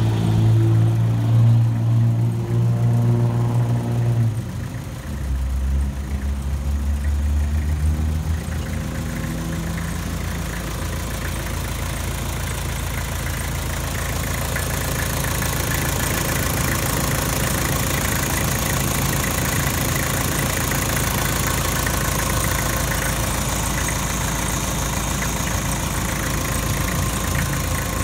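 Kubota M9000's four-cylinder diesel engine running. Its low steady hum drops in pitch about five seconds in, then settles into a steady run.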